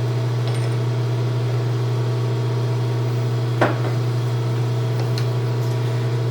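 Steady electrical or mechanical hum in a machine shop, a low, even drone with several overtones. A single short knock sounds about three and a half seconds in.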